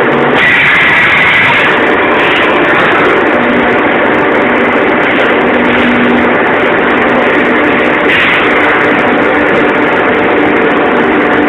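Injection moulding machine with its in-mould labelling robot running: a loud, steady machine drone, with higher-pitched surges about half a second in and again about eight seconds in.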